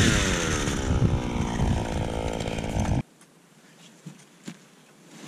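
Gas-powered ice auger engine falling from full throttle to a lower, uneven run over the first second, then cutting off abruptly about three seconds in. After that only faint wind and a couple of light knocks.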